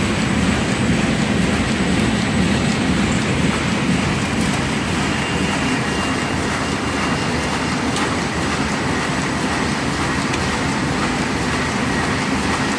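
Paper bag making machine running at production speed, about 120 bags a minute, with a steady dense mechanical clatter.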